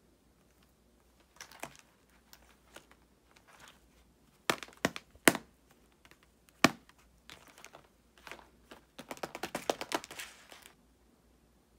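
Tape-covered paper squishies crinkling and crackling as they are handled: scattered sharp crackles, then a dense run of crinkling near the end as they are laid down and arranged by hand.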